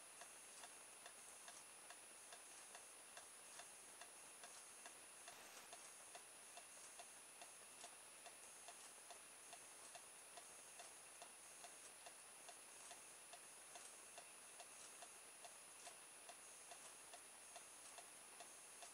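Near silence with faint, regular ticking at about two ticks a second, over a faint steady high-pitched whine.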